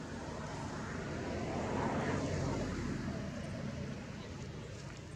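A vehicle passing by, its noise swelling to a peak about two seconds in and then fading away.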